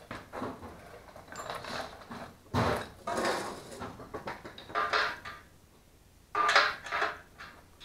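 Metal clinking and clattering of wrenches, bolts and engine parts as the fuel tank is unbolted from a Duromax 440cc small engine, in several short irregular bursts, the loudest about two and a half seconds in and again near the end.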